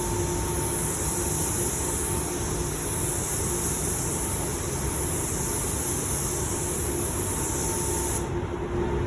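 Iwata LPH 400 paint spray gun hissing steadily as it lays a wet coat of sealer, the air cutting off suddenly about eight seconds in as the trigger is let go. A steady low hum runs underneath.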